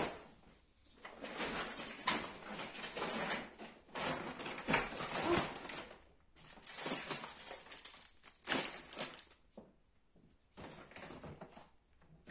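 Plastic grocery packaging rustling and crinkling as it is handled, in irregular bursts with short pauses.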